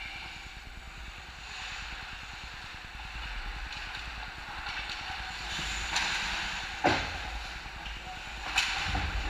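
Ice hockey play in an indoor rink: a steady hiss of skate blades scraping the ice, with two sharp cracks from the play about two-thirds of the way through and near the end.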